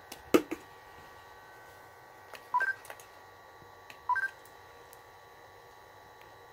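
Sony AIBO ERS-11x robot dog giving two short electronic beeps, each a lower note stepping up to a higher one, about a second and a half apart. A single click comes near the start.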